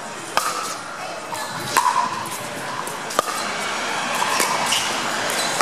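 Pickleball paddles striking the plastic ball during a rally: three sharp pops about a second and a half apart, over a murmur of spectators.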